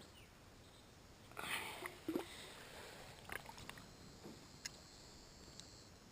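Bass being released over the side of a john boat: a brief splash about one and a half seconds in, then a few faint knocks and clicks.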